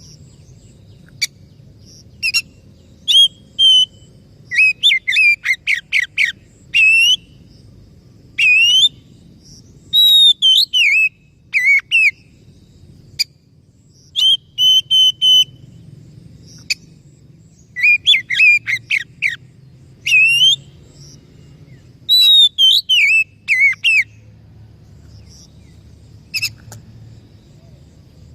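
Oriental magpie-robin (kacer) singing: bursts of loud whistled phrases with quick up-and-down slurred notes and sharp clicks, separated by short pauses, over a faint low hum.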